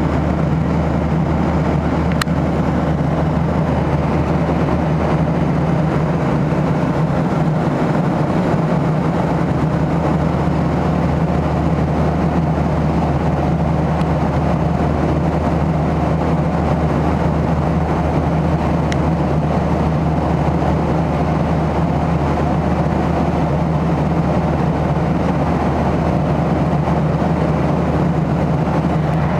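Airliner cabin noise in flight: a steady low drone of engines and airflow with an even rushing hiss.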